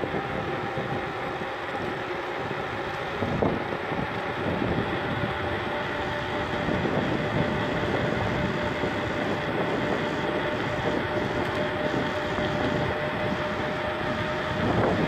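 Mountain bike descending with a steady, engine-like drone of two held tones, the lower one climbing slightly in pitch, over rushing tyre and wind noise with an occasional knock.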